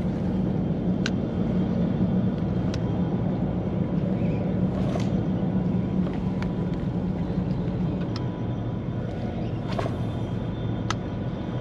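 A steady low rumble, with faint sharp clicks every second or two.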